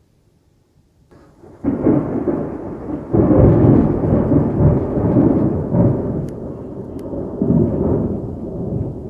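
Loud thunder following a lightning flash: a low rumble rises about a second and a half in, jumps louder around three seconds, and rolls on in waves, easing near the end.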